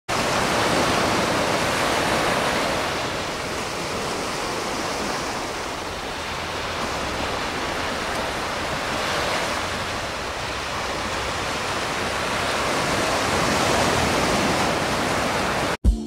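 Surf washing onto a sandy beach: a steady rush of small breaking waves that swells and eases slowly, cutting off suddenly just before the end.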